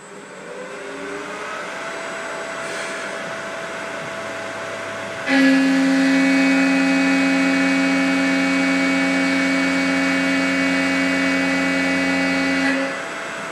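CNC milling machine spindle, driven by an AC inverter-duty motor on a VFD, spinning up with a rising whine; about five seconds in a 3-flute carbide roughing end mill bites into the workpiece and the cut sets up a loud, steady tone with overtones, at about 5400 RPM taking a 0.125 inch deep pass at 49 inches per minute. The cutting sound stops abruptly shortly before the end.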